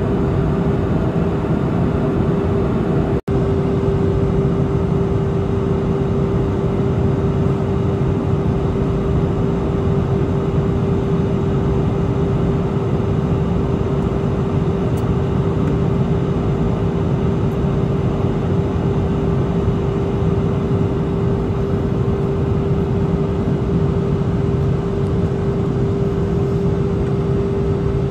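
Jet airliner cabin noise heard at a window seat over the wing: the steady rush of the engines and airflow, with a constant hum running through it. The sound cuts out for an instant about three seconds in.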